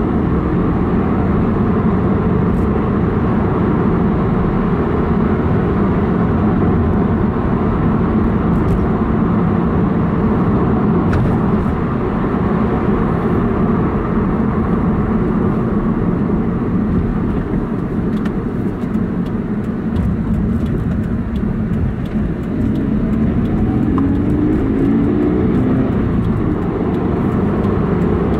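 In-cabin sound of a Subaru BRZ's 2.0-litre flat-four boxer engine and tyres while driving, a steady drone with the engine still warming up from a cold start. The engine revs rise briefly about three-quarters of the way through as the car accelerates.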